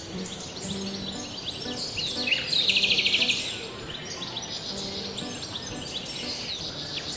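Birds chirping and calling over a steady high hiss of outdoor ambience, with a fast, loud trill near the middle. Soft music plays underneath.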